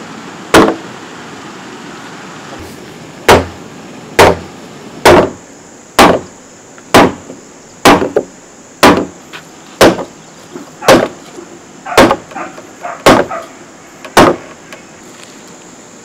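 A hammer striking a wooden block to drive a joint of a timber frame together. One blow comes near the start, then after a pause of about two and a half seconds a steady run of about a dozen blows follows at roughly one a second, some with a lighter tap just after.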